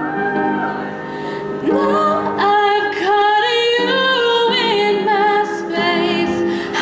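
A young woman singing a slow melody into a microphone, holding long notes with vibrato.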